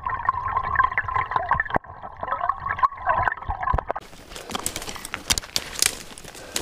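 Stream water heard through an underwater camera: a dull, muffled gurgling with no high end. About four seconds in it cuts to open air, with dry twigs and brush crackling and snapping underfoot.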